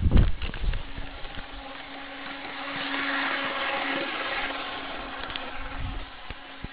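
HO scale model trolley running at full speed: its small electric motor hums steadily, with a whirring rush of motor and wheels on the rails that swells as it passes close by in the middle and then fades. A few low thumps come right at the start.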